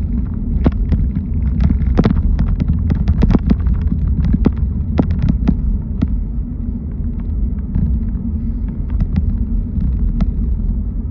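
Car driving, with a steady low rumble of road and engine noise. Irregular sharp taps and clicks come thick for the first six seconds or so, then only now and then.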